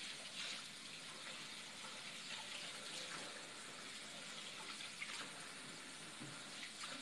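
Faint, steady trickle of water in a kitchen sink just after the tap has been shut off, with a light knock about five seconds in.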